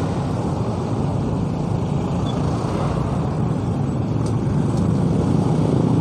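Motorcycle engine running steadily at low speed in slow, dense traffic, with the surrounding road and traffic noise of other motorcycles and a bus.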